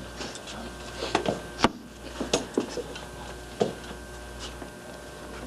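A few scattered light knocks and clicks of glasses and bottles being handled on a bar counter, the sharpest about a second and a half in, over a steady low hum.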